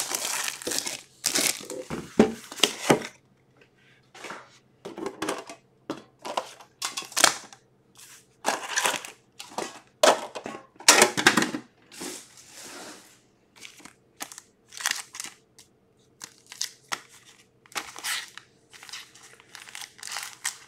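Plastic shrink-wrap crinkling as it is torn off a metal trading-card tin during the first three seconds. After that come scattered short crinkles and light clicks as the tin is opened and the foil card packs are taken out and handled.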